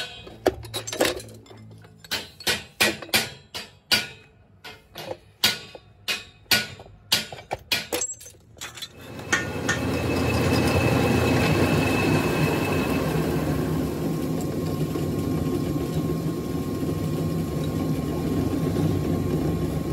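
Sharp metal clinks and taps, roughly two a second, as steel flat bar and a steel square are handled on a hand-lever shear. About nine seconds in, a metal lathe turning a steel pipe hub in a four-jaw chuck takes over: a steady machining noise with a faint high whine.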